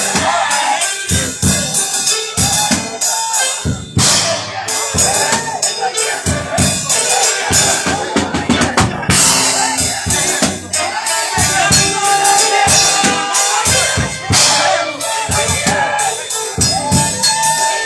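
Live gospel praise music driven by a drum kit playing a busy beat of bass drum, snare and cymbal hits, with a wavering melodic line, voice or keyboard, over it.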